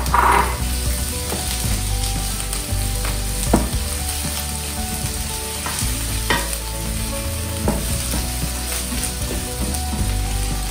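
Minced onion sizzling as it fries in hot coconut oil in a frying pan while being stirred with a spatula, with a few sharp clicks of the spatula against the pan.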